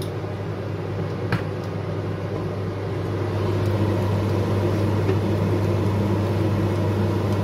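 Wooden spoon stirring thick, creamy rice in a stainless steel pot over a steady low machine hum, with one click about a second in.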